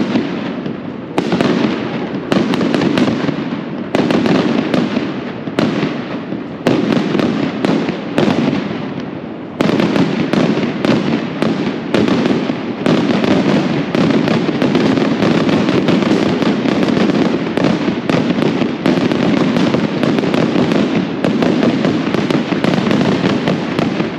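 A barrage of firecrackers going off: separate loud bangs about a second apart at first, then from about ten seconds in a dense, nearly unbroken rattle of explosions.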